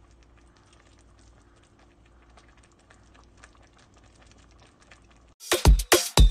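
Pot of shredded macapuno coconut simmering on the stove: a faint crackle of small bubbles over a low hum. About five seconds in, electronic dance music with a heavy beat, about two thumps a second, starts abruptly.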